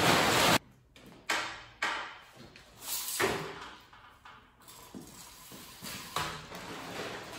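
Plastic tarp rustling loudly and stopping abruptly about half a second in. Then come scattered sharp knocks and scrapes as a tent pole is handled and fed through a loop in the tarp.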